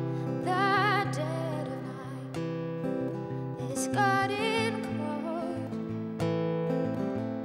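A woman singing over an acoustic guitar in a live solo performance. Two sung phrases with wavering held notes come about half a second in and about four seconds in, while the guitar plays on beneath.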